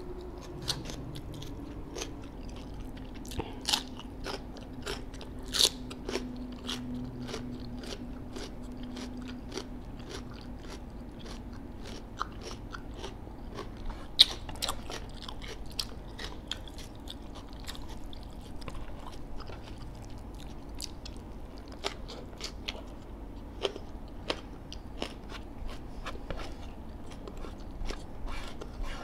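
Person eating deep-fried chicken: chewing with many sharp, crisp crunches scattered throughout and now and then a louder bite.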